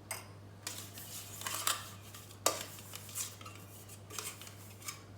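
A utensil clinking and scraping against a cooking dish as it is greased with oil, about seven short light clinks and scrapes, over a steady low hum.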